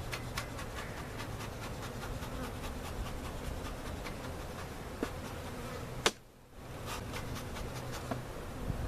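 Honey bees buzzing steadily around an open hive, with scattered light clicks. About six seconds in there is one sharp knock, and the sound briefly cuts out.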